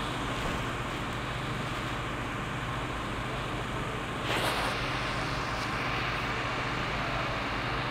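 Fire-brigade rescue train running steadily as it moves away into a railway tunnel, a continuous low rumble. About four seconds in there is a brief louder rush of hissing noise.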